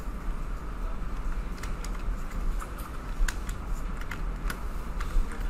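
Scattered clicks of a computer keyboard and mouse, several a second from about a second and a half in, over a steady low hum.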